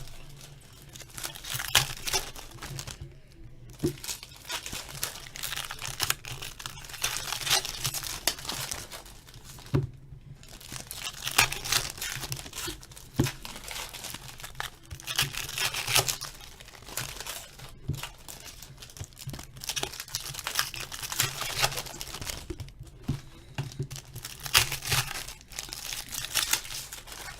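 Hockey card packs being torn open, their wrappers crinkling and the cards rustling, in repeated spells broken by brief pauses.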